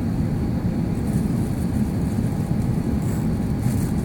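Steady low rumble of cabin noise inside an Airbus A350 in the climb after takeoff: the roar of its Rolls-Royce Trent XWB turbofans and the airflow over the fuselage, with a faint steady tone above it.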